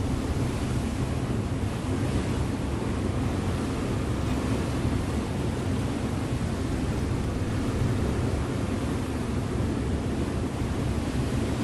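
River motor ship under way: its engine hums steadily low down, under the rush of water along the hull and wind on the microphone.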